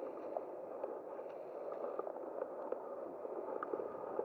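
Steady low rushing background noise with a few faint small clicks.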